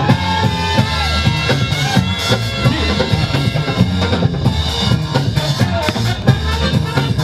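Breakbeat music with a steady drum-kit beat of kick and snare over heavy bass.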